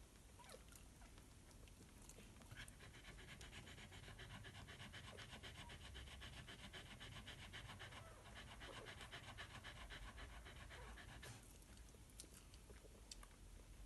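Miniature Australian Shepherd bitch panting quickly and evenly, faint, starting a few seconds in, pausing briefly about eight seconds in, and stopping a couple of seconds before the end.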